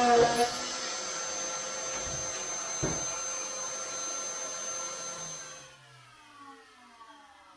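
Wet/dry shop vacuum running steadily, with a single knock about three seconds in; the vacuum sound cuts off suddenly near the end.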